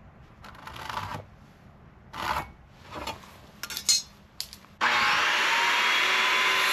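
Short scrapes and knocks of wood being handled. About five seconds in, a power tool starts abruptly and runs steadily into wood with a loud hiss.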